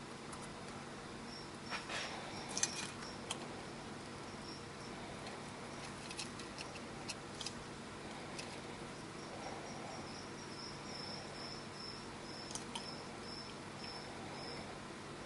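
Mexican beaded lizard chewing a quail egg: scattered cracks and clicks of eggshell in its jaws, the loudest about two and a half seconds in, over a steady faint hum. In the second half a high chirping in short, evenly spaced pulses, a few a second, runs alongside.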